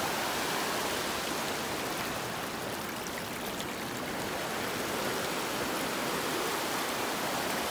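River rapids: shallow water rushing over and between rocks in small white-water drops, a steady, even rush of water.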